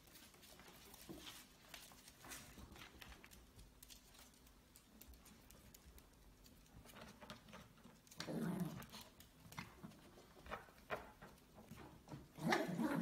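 Small dogs' claws pattering and clicking on a laminate floor as they play with a ferret, with short dog vocal sounds about eight seconds in and again, louder, near the end.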